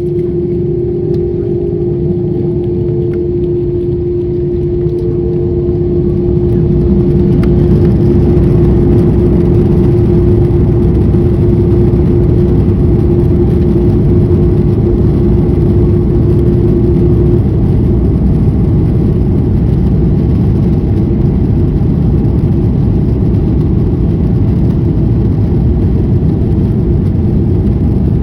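Airbus A330-300 jet engines heard from inside the cabin during take-off: the noise builds over the first seven or eight seconds and then holds as a loud, steady rush, with a steady hum that cuts out about two-thirds of the way through.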